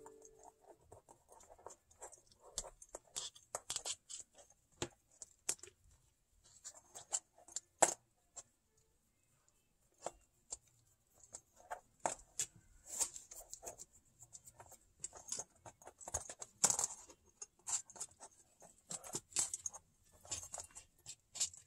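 Kittens scrabbling about on the booth floor: irregular scratches, patters and light clicks of claws on the surface, with paper and cardboard rustling as they paw at it.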